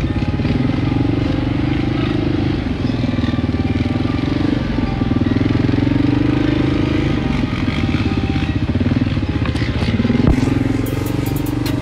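ATV engine running while riding, heard from on board, its pitch rising and falling with the throttle. A single sharp knock sounds near the end.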